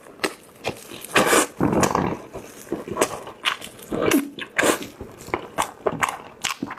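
Close-miked chewing, biting and lip-smacking of a person eating braised chicken drumsticks: an irregular run of wet clicks and smacks.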